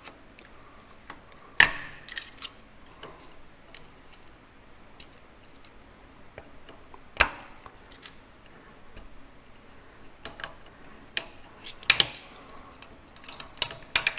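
Screwdrivers and steel parts clicking and clinking as a snap ring is pried out of the Farmall 806's PTO clutch assembly. There are scattered light ticks, with sharper metallic clicks about a second and a half in, about seven seconds in and about twelve seconds in.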